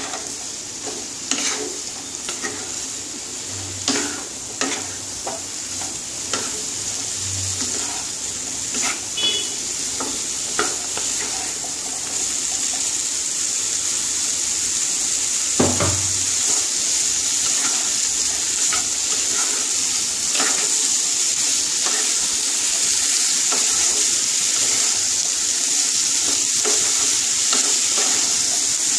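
Diced vegetables sizzling in oil in a non-stick frying pan over a gas flame that has just been turned up, stirred and scraped with a wooden spatula. The spatula knocks and scrapes come often in the first ten seconds or so, with one louder knock near the middle, while the sizzle grows steadily louder.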